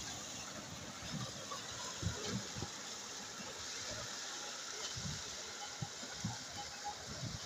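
Water pouring and splashing steadily from the metal buckets of a bull-driven Persian wheel into the channel below, with irregular low thumps.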